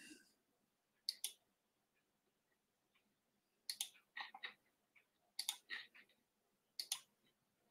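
Faint clicks of keys being typed on a computer keyboard, in four short bursts of a few keystrokes each.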